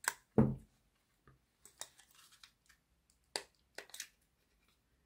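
Sparse small clicks and taps of a screwdriver and plastic parts as the body screw of an OO gauge model locomotive is undone and the model is handled, with a louder knock near the start.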